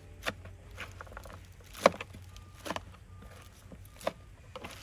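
A few scattered light knocks and taps, the loudest about two seconds in, over a low steady background hum.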